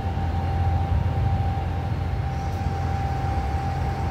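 Steady low drone of greenhouse climate-control fans running, with a constant thin whine above it.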